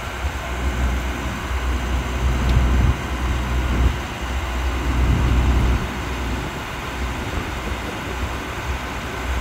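Wind buffeting the phone's microphone over a low, steady machinery rumble, swelling in two gusts about two and five seconds in.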